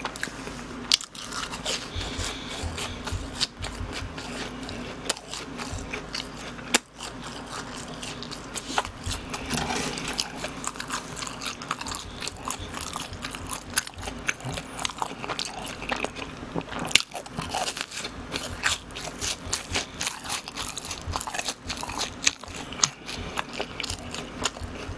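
A person biting into and chewing BHC cheese balls, fried dough balls with a soft cheese filling: a continuous run of short, irregular chewing clicks.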